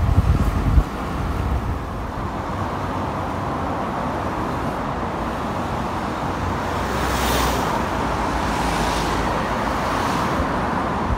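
Steady road traffic noise on a multi-lane highway, cars and tyres rushing past. There is a heavy low rumble in the first second, and a few vehicles swell past between about seven and ten seconds in.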